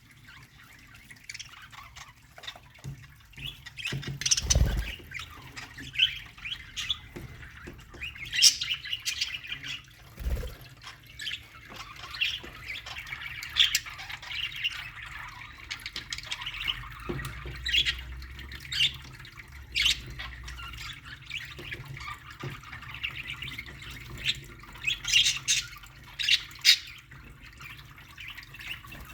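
A colony of budgerigars chirping, warbling and squawking together, many short sharp calls over a continuous chatter. Two low thuds come about four and ten seconds in.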